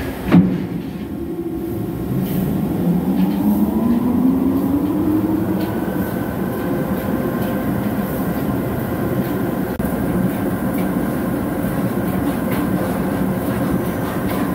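Large CNC vertical turning lathe: a sharp knock about half a second in, then the rotating table and spindle drive speeding up with a rising whine before running on at a steady speed with a continuous mechanical rumble.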